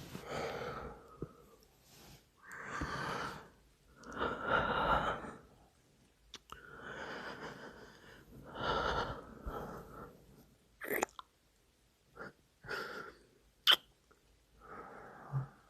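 A man breathing heavily, close to the microphone: about five long breaths in the first ten seconds, followed by short wet mouth and kissing sounds, a few sharp smacks in quick succession.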